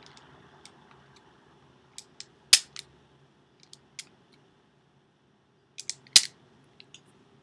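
Self-adjusting wire stripper worked twice on EL wire, each squeeze a few light clicks and then a sharp snap as the jaws clamp, cut and pull the insulation off.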